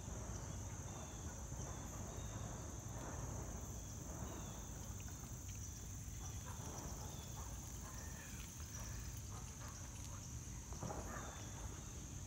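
Outdoor summer ambience: a steady, high-pitched drone of insects, over a low rumble, with a few faint soft noises now and then.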